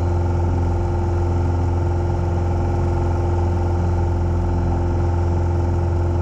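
Single-engine light aircraft's piston engine and propeller droning steadily, heard from inside the cockpit.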